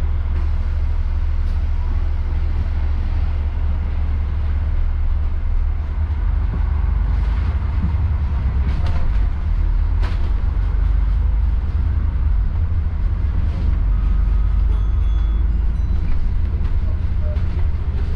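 Steady low rumble of a city bus's diesel engine and running gear heard from on board, with a few short knocks and rattles.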